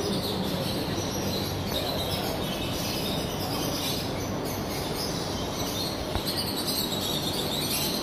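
Many caged birds chirping and twittering together, a dense, steady chatter with brighter chirps in the second half, over a faint steady low hum.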